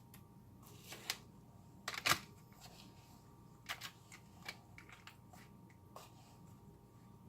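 Scattered clicks, knocks and short scrapes of a utensil against a bowl and molds as homemade suet is portioned out, the loudest a brief scrape about two seconds in.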